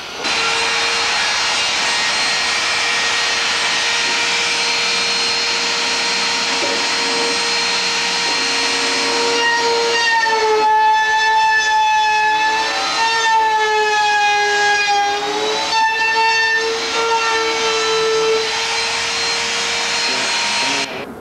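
Handheld electric router running with a loud, steady whine as it trims the edges of a wooden canoe's rails. About halfway through its pitch dips and wavers for several seconds, then steadies again.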